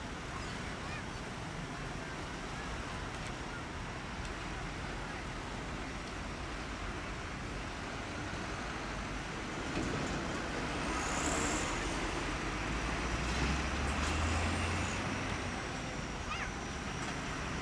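Road traffic passing close by: cars, motorcycles and heavy trucks, a steady rumble of engines and tyres. About ten seconds in it swells as a heavy truck's diesel engine drones past, easing off after about five seconds.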